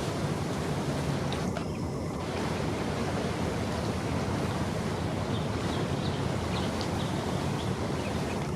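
Steady rush of wind and water, with the low, even drone of a passing river boat's engine underneath.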